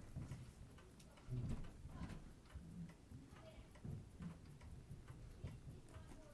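Seiko 6139 automatic chronograph movement ticking faintly and evenly, its balance freshly installed and running. A few soft handling bumps sound under the ticks.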